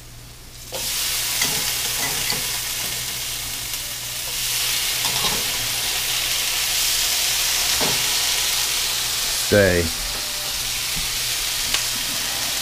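Food frying in a hot pan: a loud, steady sizzle that starts abruptly about a second in and carries on, with a few light clicks of utensils against the pan.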